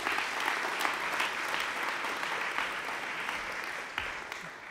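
Large audience applauding, the clapping fading out near the end.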